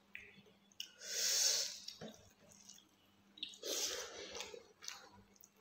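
Close-miked eating sounds: two loud, breathy huffs about a second long, one about a second in and one about three and a half seconds in, with faint mouth clicks of chewing between them.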